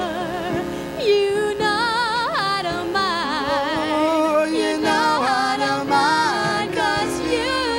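A man and a woman singing a duet with strong vibrato, their voices overlapping.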